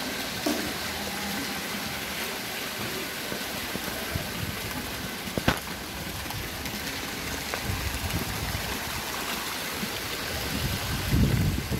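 Water splashing steadily from small fountain jets and a spout pouring into a fish pond, with one sharp click about five and a half seconds in and a low rumble near the end.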